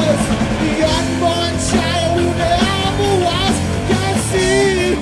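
Heavy rock band playing live: electric guitar and drums with a singer's vocal line over them.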